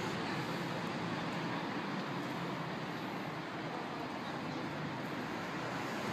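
Steady city street ambience: a continuous, even traffic hum.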